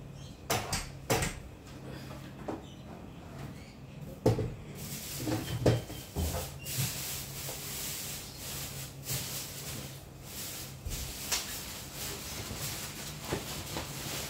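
Knocks and clunks of a plastic speaker cabinet and metal tripod stand being handled as the speaker is lifted and seated on its stand. The loudest knocks fall in the first six seconds, then softer scattered clicks.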